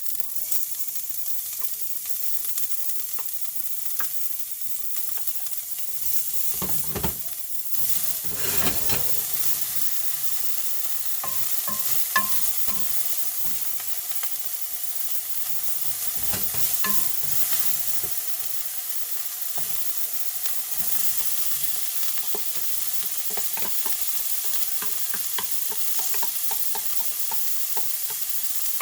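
Food sizzling in a hot pan while being stirred, with occasional knocks and scrapes of a utensil against the pan; one sharp click about twelve seconds in.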